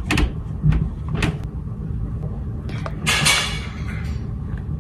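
A few light clicks and taps from handling a plastic sunscreen tube and its cap, then a short rushing noise about three seconds in, over a low steady room hum.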